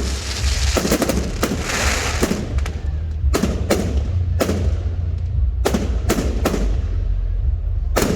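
Fireworks going off: about a dozen sharp bangs from bursting aerial shells, some in quick pairs, with a crackling shower about two seconds in. A steady low rumble runs beneath.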